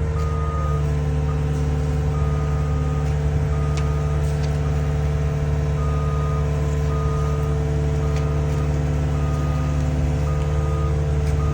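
Heavy diesel equipment running steadily at work, with a reversing alarm beeping about once a second.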